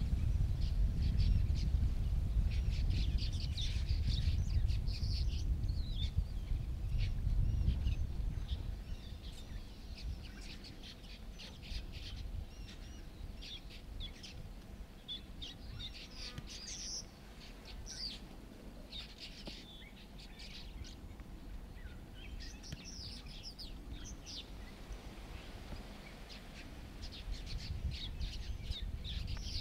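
Many small birds chirping, with quick short calls throughout, over a low rumble that is loudest for about the first eight seconds and returns near the end.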